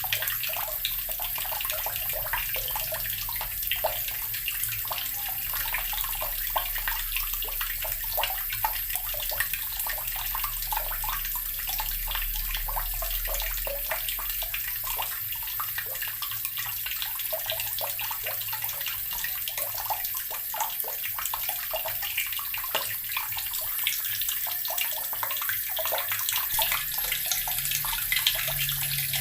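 Water running steadily from a tap and splashing into a basin below: an even, unbroken rush of water.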